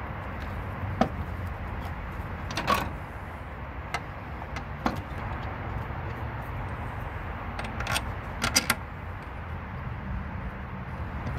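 Scattered light clicks and knocks of parts being handled at an engine's timing-belt end while a new timing belt is fitted, about six in all, with a short rattle a few seconds in and a quick cluster near the end. Under them runs a steady low rumble.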